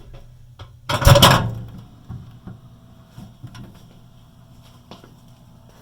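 A loud clattering burst about a second in, lasting about half a second, then a few light clicks and knocks, with a low steady hum underneath: a microwave being worked that makes the wrong noise.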